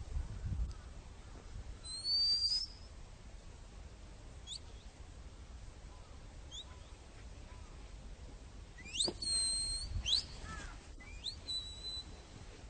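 A few short, high whistled calls, several rising in pitch, with a steadier held whistle a little after nine seconds in.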